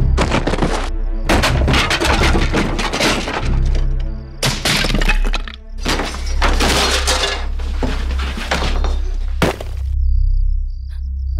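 Earthenware pots and household things being smashed, crash after crash, ending in one sharp smash about nine seconds in, over low background music.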